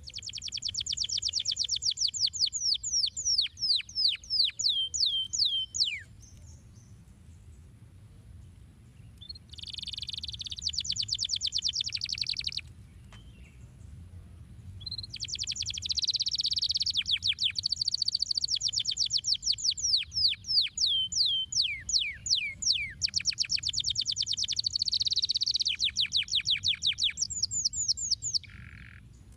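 Domestic canary singing: rapid trills of repeated high, downward-sweeping notes, in three bouts with short pauses between them.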